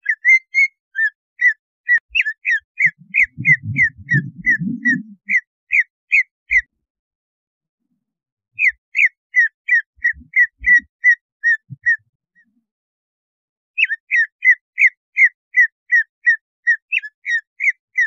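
Green leafbird (cucak ijo) calling: rapid runs of short, sharp whistled notes, about three to four a second, in phrases of several seconds broken by two pauses of about two seconds. This is the fierce, excited call that keepers play to rouse other cucak ijo into aggression.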